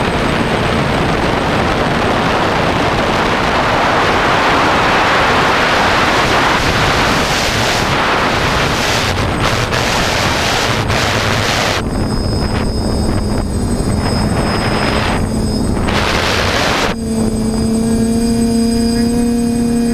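TBS Discovery quadcopter's motors and propellers giving a steady hum, for much of the time buried under heavy wind rush on the microphone. The hum comes through clearly from about two-thirds of the way in, breaks off briefly near the end, then returns.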